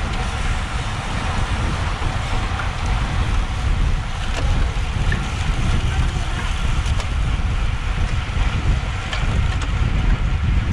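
Wind buffeting an action camera's microphone as a road bike races along: a steady, loud low rumble over a broad rushing hiss.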